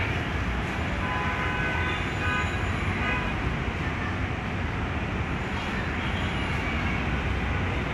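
Steady street traffic noise from vehicles passing on the road, with a few short high tones about one to three seconds in.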